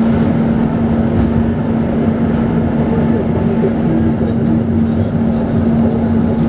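Tram running, heard from inside the passenger car: a steady rumble of the wheels on the rails with a constant low hum underneath.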